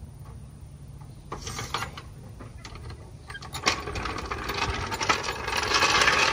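Steel hydraulic floor jack being lowered and pulled out from under the car: sharp metallic clicks and rattles from the jack and its handle, then a rising scraping rattle as it rolls across concrete, loudest near the end.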